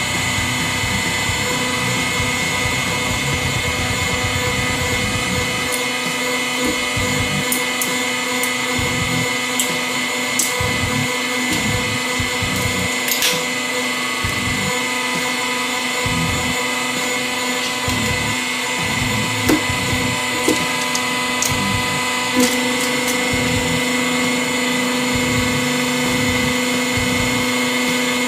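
Hydraulic guillotine running with a steady, high-pitched motor-and-pump whine as its blade cuts down through a D-cell battery. Several sharp cracks and crunches of the battery's metal casing splitting sound over the middle part.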